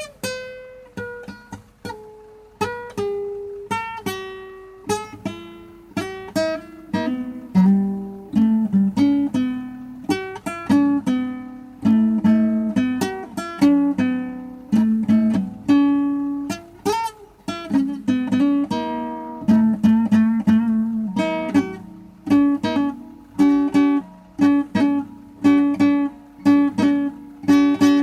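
Solo plucked string instrument improvising a blues: runs of picked single notes, then chords struck in a steady rhythm of about two a second over the last several seconds.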